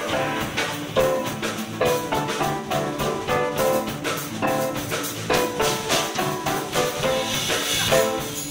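A live band jamming on keyboards, electric guitar and drum kit, with a steady beat of drum and cymbal strokes under sustained keyboard and guitar notes.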